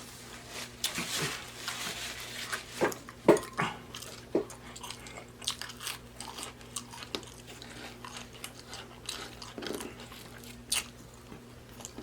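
Close-up chewing of a stacked burger, fish sandwich and chicken sandwich: wet mouth clicks, smacking and light crunching at an irregular pace, over a faint steady electrical hum.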